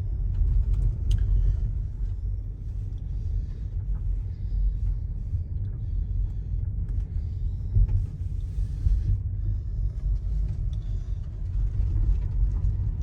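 Wind buffeting the microphone: a low, uneven rumble with no clear pitch.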